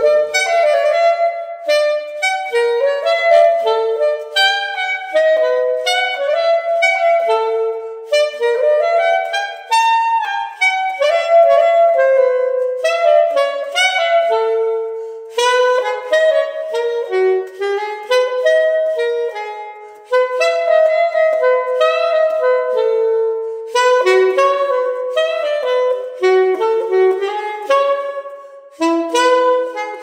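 Bebop jazz tune played on reed wind instruments in quick, busy runs of notes, starting abruptly. No bass or drums are heard.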